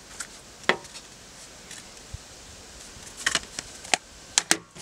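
A few sharp clicks and taps from a metal steelbook case and its plastic disc tray being handled and snapped shut. There is a single click about a second in and a quick cluster of clicks near the end.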